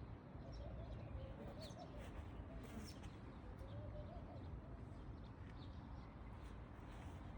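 Faint bird sounds: two low, wavering coos, each about a second long, and a few short high chirps over a steady low rumble.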